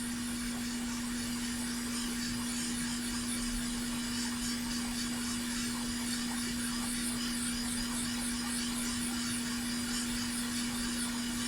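Hot air rework station blowing steadily, with a constant hum under its airflow hiss, warming the through-hole HDMI connector's solder joints to loosen them for removal.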